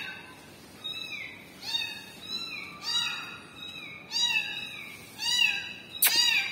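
Young orange kitten meowing over and over, a short high-pitched cry about every two-thirds of a second: a kitten crying for its mother. There is a sharp click near the end.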